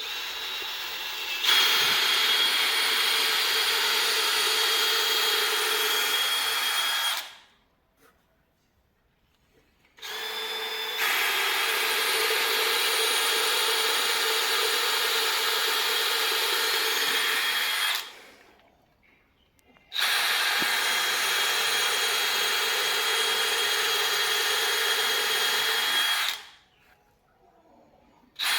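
Electric power tool running in three long bursts of about six to eight seconds each, switched off for about two seconds between them and started again at the very end; the first two runs step up in level a second or so after starting, as if the tool takes up load.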